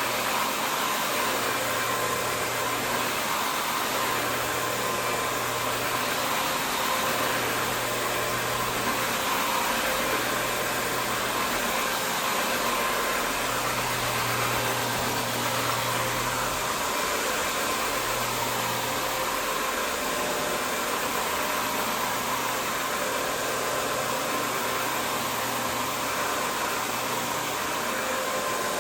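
Steady motor noise from running cleaning equipment, a hiss with a faint whine, under a low hum that cuts in for a few seconds and drops out again every few seconds.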